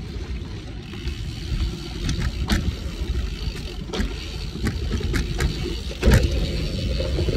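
Cervelo Aspero gravel bike on 47 mm tyres rolling fast over a dirt trail, a steady low rumble broken by several sharp rattles and knocks as it hits bumps, the loudest about six seconds in.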